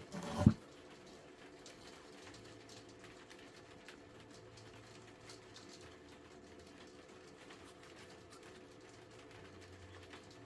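A single short, loud thump about half a second in, then faint room tone with a low hum and a few faint ticks.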